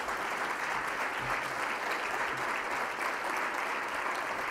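Audience of dinner guests applauding steadily.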